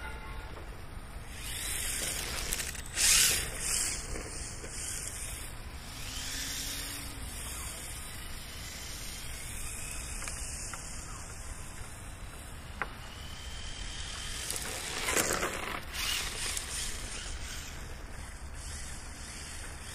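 HSP 94123 1/10 brushless RC drift car's electric motor whining up and down in pitch as it drives and slides on asphalt, over a steady low rumble. There are two louder rushing bursts, the loudest about three seconds in and another around fifteen seconds in.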